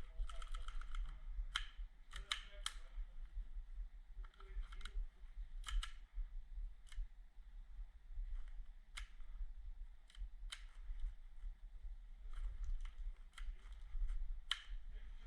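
Airsoft guns firing single shots during close-quarters play, heard as sharp snapping clicks at irregular intervals over a steady low rumble.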